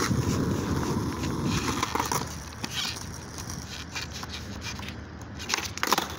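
Skateboard wheels rolling on rough asphalt, a rumble that fades about two seconds in. Near the end comes a sharp clack as the board's tail is snapped down for an ollie.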